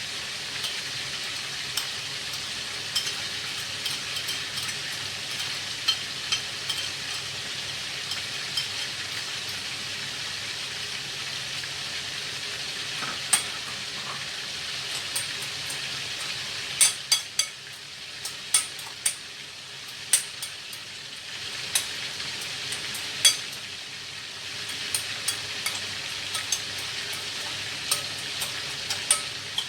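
Pieces of duck frying in hot oil in a pan: a steady sizzle with scattered sharp clicks and ticks, most frequent in the middle stretch.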